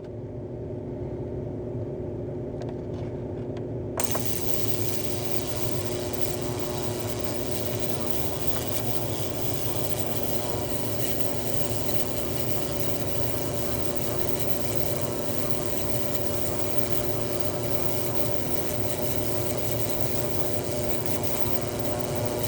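Ultrasonic cleaner buzzing steadily with a droning hum. About four seconds in, a harsher, hissier buzz joins and keeps going.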